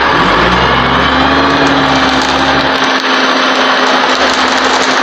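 A small engine running loud and steady, its pitch rising over the first second or so as it speeds up, then holding even.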